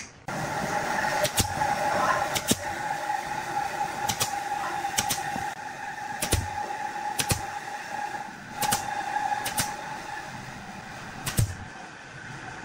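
Pneumatic brad nailer firing nine times, about once a second, driving brads through stacked wooden discs, each shot a sharp snap. A steady hum runs underneath.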